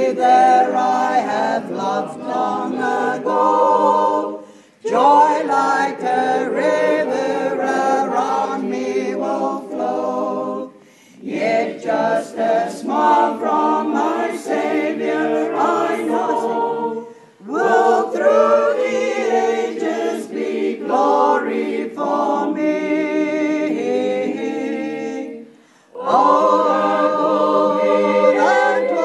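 A group of voices singing unaccompanied, in long phrases with short pauses between them.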